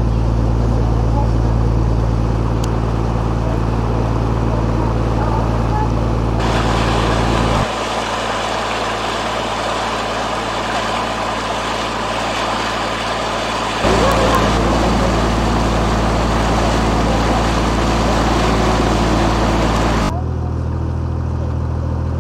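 Boat engine running steadily, with water and wind noise around the hull. The low drone drops abruptly about eight seconds in and comes back a few seconds later.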